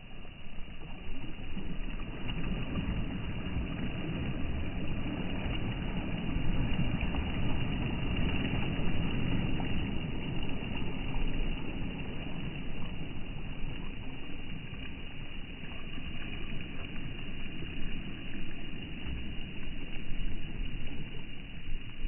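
Small sea waves breaking and washing up a pebble shore, a steady wash that swells and eases every few seconds.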